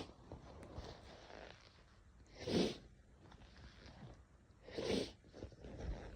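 A girl sneezing twice, about two seconds apart, each sneeze short and sharp, with a fainter sound near the end.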